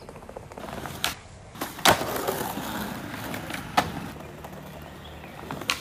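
Skateboard wheels rolling over paving tiles, broken by about four sharp clacks as the board is popped and lands during kickflip attempts.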